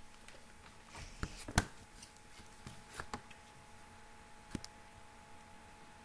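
Light taps and clicks as a folded paper model and a pen are handled on a wooden tabletop. There is a cluster of them between one and two seconds in, then more around three seconds and again after four and a half seconds, over a faint steady hum.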